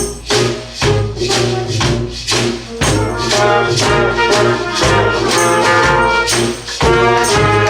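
Street band of saxophones and brass with drums playing a rock anthem groove, the horns holding chords over a steady beat of about two drum hits a second.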